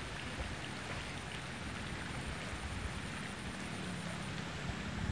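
Steady outdoor hiss of flowing river water and breeze, with a faint low hum in the second half and a thin high whine that stops about four seconds in.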